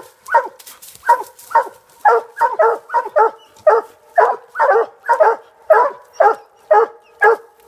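Coon-hunting hounds barking in a fast, steady chop, two to three barks a second, the barks sometimes overlapping. This is the sound of hounds baying at a tree, urged to climb on to their treed game.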